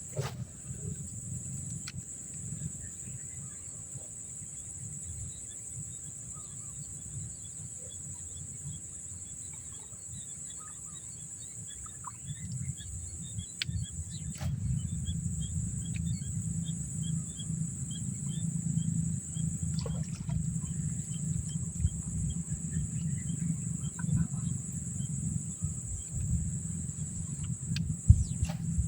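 Steady high insect drone with faint bird chirps over it, against a low rumbling noise that grows louder about halfway through, broken by a few sharp clicks.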